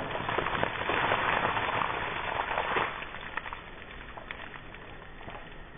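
A bucket of ice water poured over a person, the water pouring and splashing down for about three seconds, then dying away to faint scattered clicks and drips.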